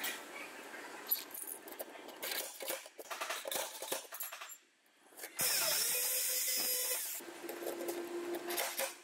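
Steel dent-pulling gear being rigged on a car's rocker panel: a chain and coiled-wire puller clinking and scraping against the sheet metal with many small clicks. About halfway through there is a brief lull, then a louder harsh noise for a second or two.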